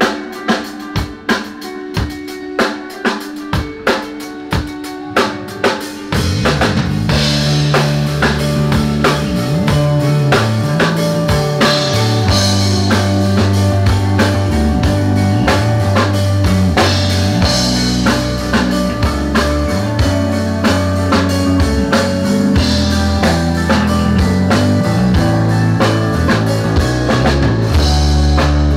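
A rock band's drum kit playing a beat of kick and snare hits on its own, then, about six seconds in, bass and guitars come in and the full band plays a steady rock groove through the stage amplification, as during a sound check.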